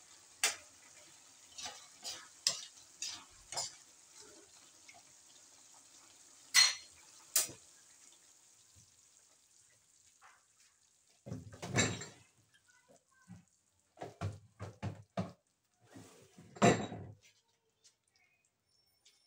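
A metal spatula scraping and tapping against a steel wok of simmering gourd and sardine stew, in sharp clicks over a steady hiss that stops about ten seconds in. After that come three short bursts of louder kitchenware clatter and knocks.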